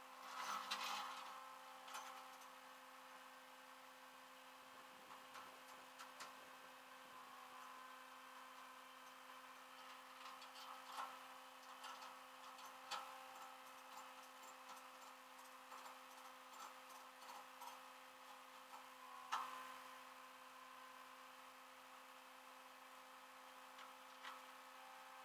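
Near silence: a faint steady hum with scattered faint ticks, and a soft knock about a second in and another about three-quarters of the way through.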